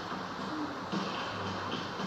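Background music from a television playing across the room, a few short held notes over a steady hiss.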